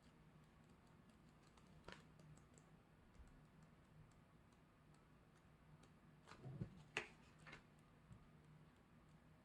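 Faint, scattered light clicks and taps from handling the pieces of a CD album package, louder once about two seconds in and in a short cluster near seven seconds, over a low steady hum.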